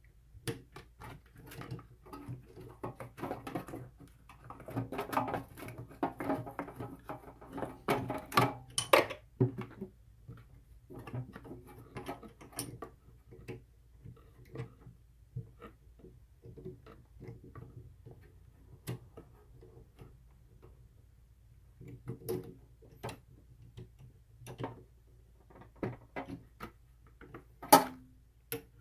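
Irregular metallic clicks and clunks of a mini lathe's four-jaw chuck being worked by hand with its chuck key while the work is centered against a dial indicator. Busy for the first several seconds, then scattered clicks, with one sharp clack near the end.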